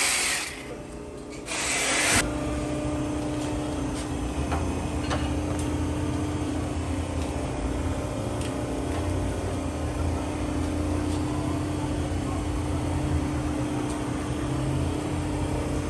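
Reciprocating saw cutting through a steel exhaust pipe in two short bursts within the first two seconds. After that, a steady low hum with a faint held tone and a few light metallic clicks.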